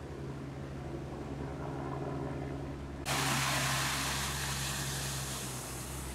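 Military cargo truck's diesel engine running with a steady low drone. About three seconds in, a sudden, louder rush of water joins it as the truck's wheels plough through floodwater and throw up spray.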